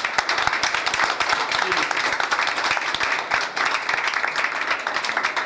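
Crowd applauding, many hands clapping densely, with voices mixed in.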